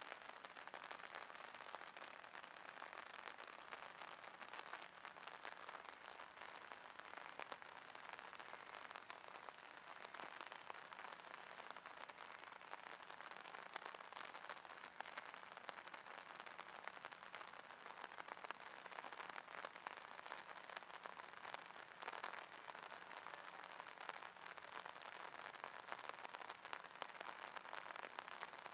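Steady light rain falling, a faint even patter of many small drops hitting the water and ground.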